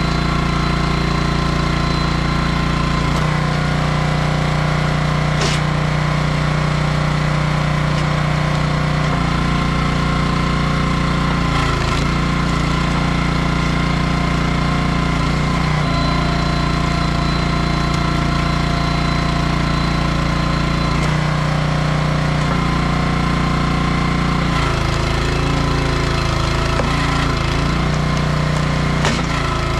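Small gas engine of a 27-ton hydraulic log splitter running steadily, its note shifting every few seconds as the splitter works through black walnut rounds, with a single sharp crack about five seconds in.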